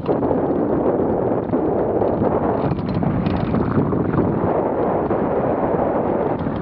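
Wind noise from the airflow of a hang glider in flight buffeting a wing-mounted camera's microphone: a steady, rough rush of air.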